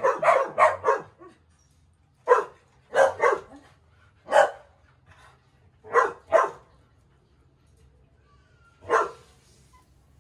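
A dog barking in short, sharp barks. There is a quick run of about five at the start, then single barks and pairs spread through the rest, the last one about nine seconds in.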